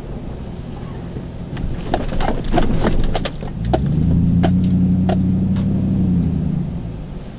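Chevy Silverado pickup truck driving on snowy roads, its engine and road noise rumbling steadily, with scattered sharp clicks. About halfway through, a louder engine note swells up, holds for about three seconds and then fades.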